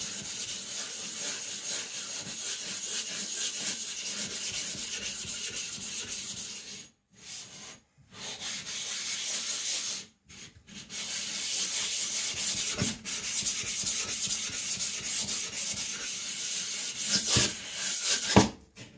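Atoma 140-grit diamond plate scrubbing back and forth across a wet Naniwa Professional 400 whetstone to flatten it: a steady gritty scraping with a few short pauses. Near the end come a couple of sharp knocks, the loudest sounds here, and then the scraping stops.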